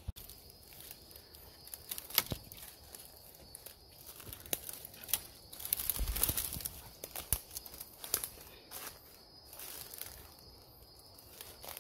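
Footsteps crunching through dry leaf litter and pushing through undergrowth, with scattered sharp crackles; the loudest rustling comes about six seconds in.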